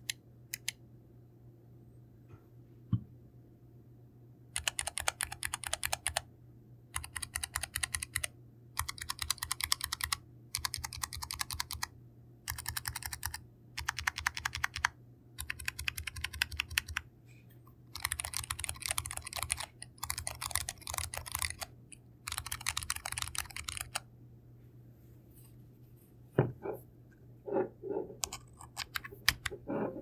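Keychron K3 low-profile keyboard with Keychron low-profile optical brown tactile switches, dampened with tape and foam inside the case, being typed on in about ten quick bursts of keystrokes, each a second or two long with short pauses between. A few duller knocks follow near the end.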